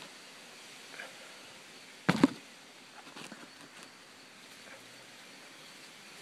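A single shot from a wooden longbow: one short, loud thump of the released string about two seconds in, with a few faint ticks around it.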